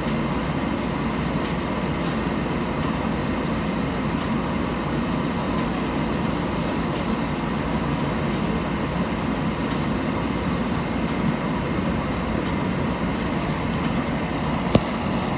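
Steady hum and noise inside a stopped New Orleans streetcar in heavy rain: the car's running equipment and the rain together. One sharp click comes near the end.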